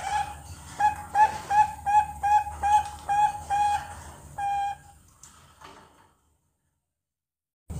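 Two-month-old Bangkok perkutut (zebra dove) squab practising its song: a run of about a dozen short, even cooing notes at roughly three a second, ending in one longer note about four and a half seconds in.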